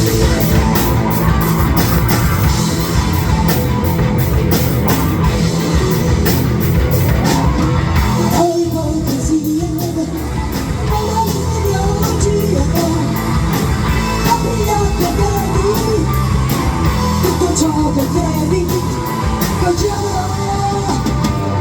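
Heavy rock band playing at full volume, drums and guitars with a steady beat; a singing voice comes in about eight seconds in.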